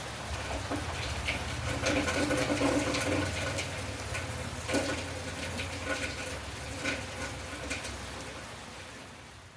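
Rain falling steadily, with scattered drips tapping and a low steady hum underneath, fading out near the end.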